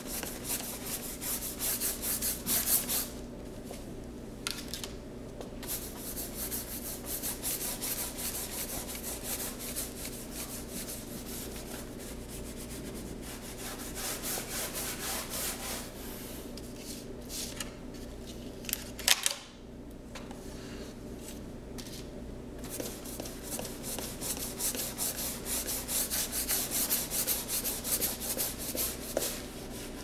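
A paintbrush's bristles brushing paint onto a large board in quick repeated strokes, several a second, with short pauses now and then. A single sharp knock comes about two-thirds of the way through.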